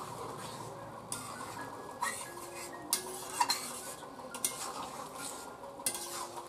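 Metal spatula stirring a thick chicken and potato curry in a large kadai, scraping and clinking against the side of the pot several times.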